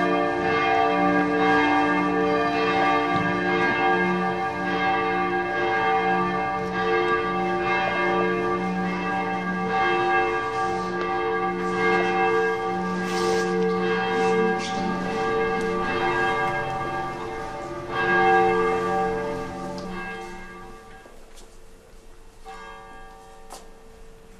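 Church bells ringing on and on, their overlapping tones pulsing and swelling, then dying away a few seconds before the end.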